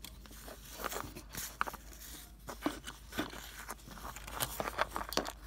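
Handling noise as plastic Littlest Pet Shop figures are moved and set down by hand: small irregular clicks, taps and light rustles.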